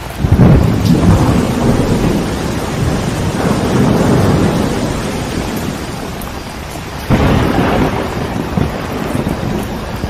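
Rain falling steadily with thunder: a loud thunder rumble at the start that fades over several seconds, and a second sudden thunderclap about seven seconds in.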